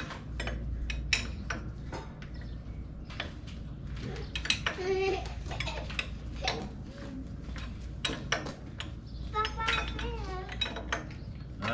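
Sharp metallic clinks and clicks of hydraulic quick-coupler fittings and tools being handled while the couplers are swapped from male to female. A child's voice talks briefly a few times, near the middle and toward the end.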